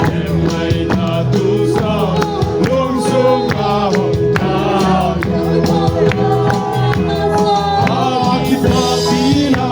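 A group singing a worship song together, held notes over a steady percussive beat.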